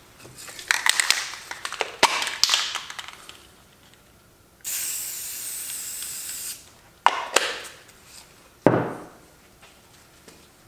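Aerosol spray-paint can shaken in two rattling bursts, its mixing ball clattering inside, then a steady hiss of about two seconds as paint is sprayed onto cardboard. Near the end come two short knocks as the can is handled.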